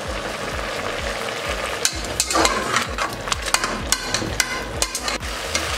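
A metal spatula scrapes and clinks against an aluminium pot as mustard-greens saag is stirred. Under it the saag bubbles with a steady sizzle as its leftover water cooks off. The scraping strokes start about two seconds in.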